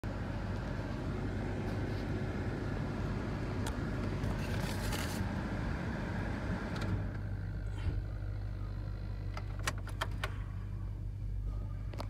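Idling vehicle engine heard from inside a pickup's cab: a steady low hum, with a rustling hiss over it for the first seven seconds. About nine and a half seconds in comes a quick run of sharp clicks.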